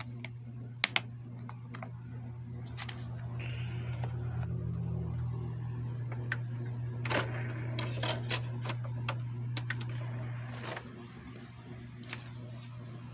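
Plastic clicks and handling of a DVD case and disc, with two sharp snaps about a second in and a run of clicks later on, over a steady low hum. The hum gets louder while the disc is loaded into a DVD player and drops off suddenly near the end as the player starts loading.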